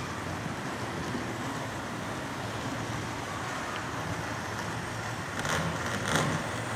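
Large-scale model steam train running steadily along its track with a low, even hum. Two brief louder noises come near the end.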